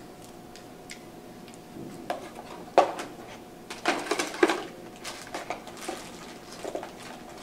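Clicks, knocks and rustling of camcorder equipment being handled and packed into its carrying case. A few sharper knocks come in the middle.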